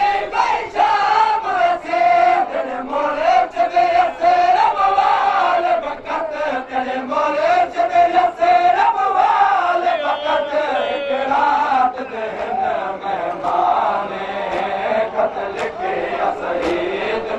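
A crowd of men chanting a noha together in one wavering melodic line, with the regular slaps of chest-beating (matam) keeping time.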